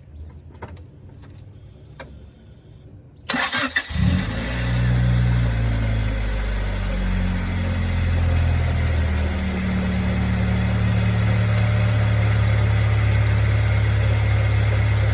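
A 1995 Honda Civic's four-cylinder engine starting. After a few faint clicks it cranks briefly about three seconds in and catches. The revs waver for a few seconds, then it settles into a steady idle.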